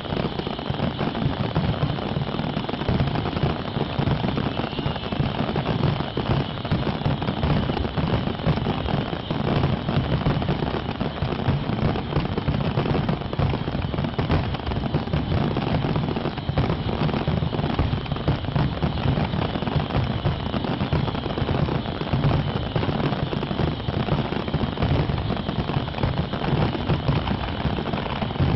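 Fireworks display going off without pause: a dense, steady crackle of many small bangs, with a constant low rumble beneath.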